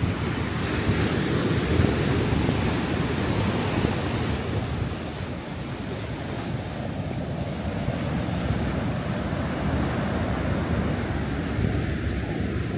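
Ocean surf breaking and washing up the sand and around a rock jetty, a steady rushing wash that swells about a second in and eases a little around the middle, with wind buffeting the microphone.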